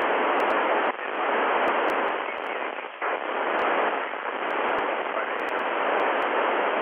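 FM radio static: a steady rushing hiss from an amateur radio transceiver receiving the International Space Station's cross-band repeater downlink with no clear voice on it. It breaks briefly about one and three seconds in.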